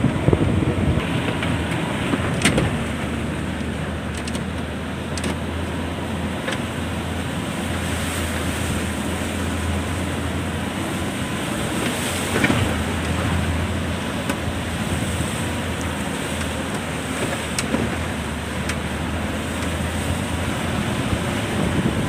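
A vehicle's engine running steadily while travelling along a dirt road, with wind on the microphone and a couple of short knocks from the ride.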